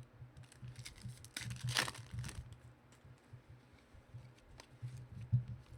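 Trading cards and pack wrappers being handled: rustling, small clicks and a louder crinkle about two seconds in, over a low steady hum.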